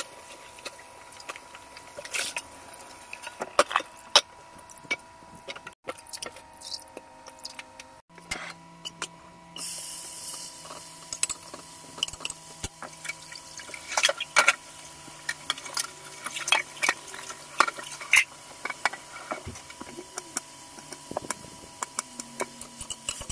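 Tap water running and dripping into a steel pot in a kitchen sink while vegetables are rinsed. Then, after a cut, cubed pork frying in a stainless-steel wok on a gas stove: from about ten seconds in, a steady sizzling hiss, with the metal ladle clicking against the wok.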